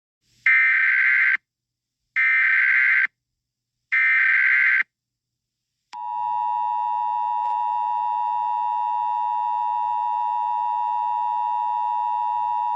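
Emergency Alert System tones: three buzzy, warbling bursts of SAME header data, each about a second long with a second's gap between them. About six seconds in, the steady two-tone EAS attention signal starts and holds, announcing that an alert message follows.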